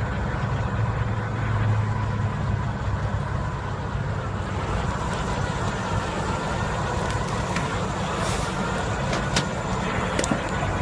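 Heavy diesel engine running steadily with a low, even drone, with a few light clicks in the second half.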